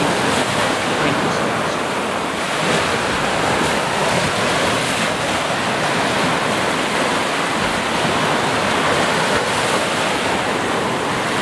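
Small ocean waves breaking and washing up a sandy beach: a steady, unbroken rush of surf.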